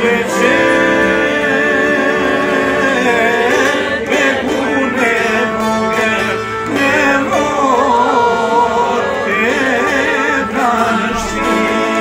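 Men's voices singing a folk song to several plucked long-necked lutes, which keep up a steady accompaniment of held notes under the voices.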